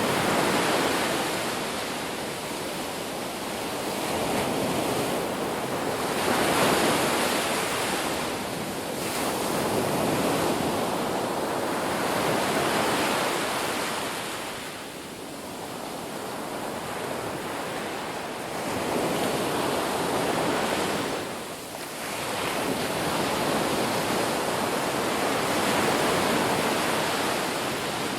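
Ocean waves breaking on a beach: a continuous surf wash that swells and ebbs every few seconds as each wave comes in and draws back. Wind on the microphone runs beneath it.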